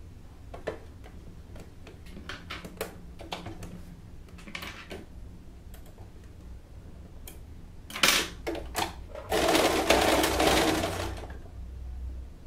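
Straight-stitch domestic sewing machine running a short burst of stitching for about two seconds near the end. Before it come scattered light clicks and fabric handling, then a few sharp clicks just before the machine starts.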